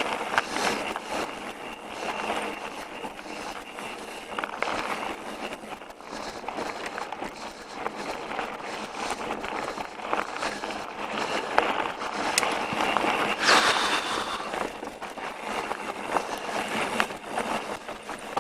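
Pivot Switchblade mountain bike riding a dirt trail: tyres rolling and crunching over the ground, with many small clicks and rattles from the bike and a louder rush of noise about three-quarters of the way through.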